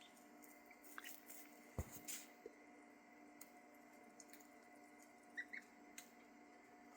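Near silence over a faint steady hum: scattered faint clicks and taps, and a few faint short peeps about five and a half seconds in, from the young ducklings.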